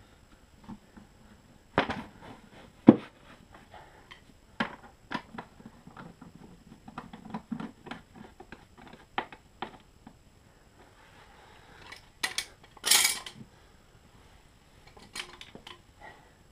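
Scattered clicks and knocks of gloved hands handling and seating the plastic side cover of a Honda EU20i generator, with a louder, longer noise about 13 seconds in.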